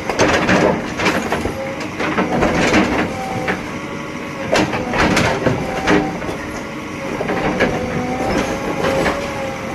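JCB 3DX backhoe loader working: its engine runs under a steady two-note whine, with irregular metal clanks and knocks throughout.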